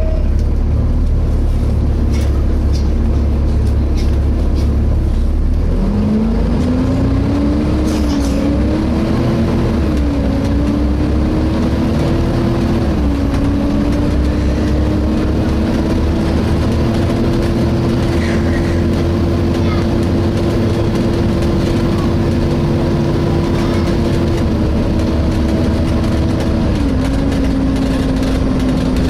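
Interior of a Volvo B7TL double-decker bus running, its engine a heavy low drone. About six seconds in, a whining tone rises as the bus pulls away, holds steady with a couple of small dips, then steps down near the end: the kind of howling noise whose source the uploader cannot place.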